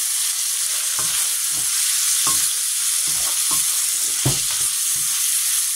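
Sofrito of sliced onion and green and red peppers sizzling in oil in a pan, not yet done, while a wooden spoon stirs it, knocking and scraping against the pan at irregular moments.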